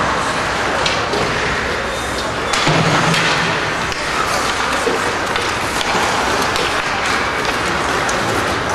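Ice hockey play in an arena: several sharp knocks and thuds of puck, sticks and players against the boards over a steady hiss of skates and crowd hubbub.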